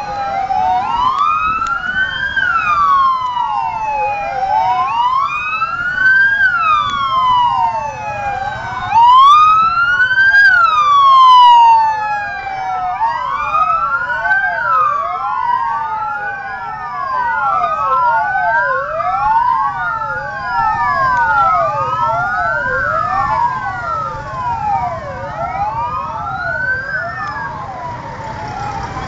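Several vehicle sirens wailing at once, out of step with each other, each pitch rising and falling slowly every few seconds. One grows loudest about nine to twelve seconds in. A low traffic rumble runs underneath.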